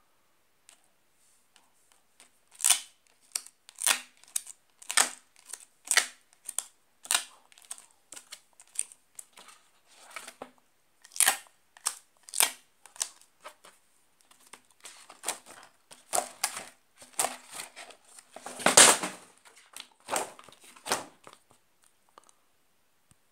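Laminated number cards on a counting board being handled by hand: a run of short scratchy rasps, about one a second, with a louder, longer one a little before 19 seconds in.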